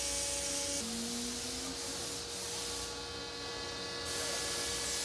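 Shop machinery running: a steady motor hum under a hissing, rasping noise. About a second in, the hum drops in pitch and then climbs back slightly.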